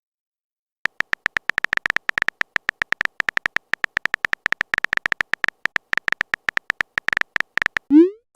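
Phone keyboard typing sound effect: a rapid, uneven run of short clicks starting about a second in, ending near the end with a short rising swoosh as the message is sent.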